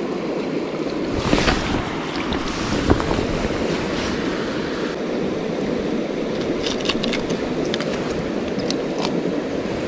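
Steady rushing of a shallow river flowing over rocks, with a few short knocks and clicks of handling, the sharpest about three seconds in.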